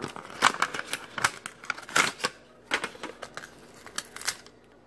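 Plastic blister packaging and its card backing being handled and pried open by hand: an irregular run of sharp plastic clicks and crinkles that dies away near the end.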